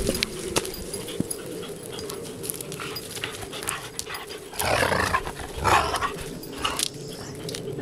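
Two dogs, one a giant schnauzer, play-chasing over a stick, with small scuffling clicks throughout. About five and six seconds in, a dog makes two short, rough noises.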